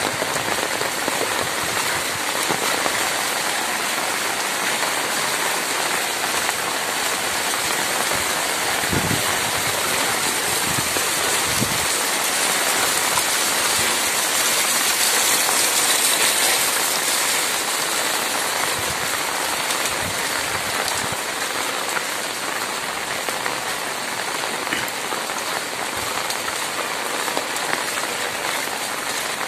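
Heavy monsoon rain pouring steadily onto a flooded street, a dense even hiss of drops hitting water and ground that swells a little about halfway through.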